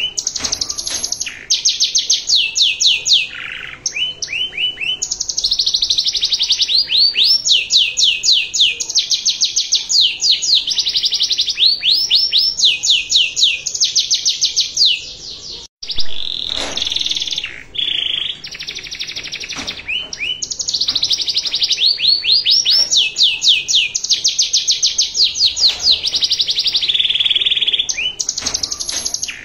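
Domestic canary singing continuously: loud, high-pitched fast trills of repeated rising notes, one rolling phrase after another, with a sudden brief gap about halfway through.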